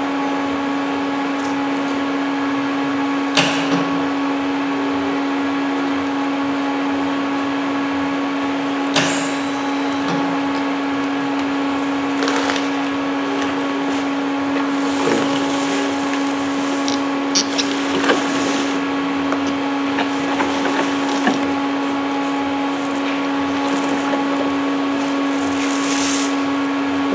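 Steady machine hum with one strong pitch in a metal shop, with scattered knocks and clanks of metal being handled, about a dozen of them.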